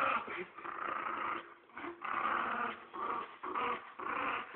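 A dog growling in repeated rough bursts, about one or two a second, as it bites and tugs at a frisbee in play-aggression.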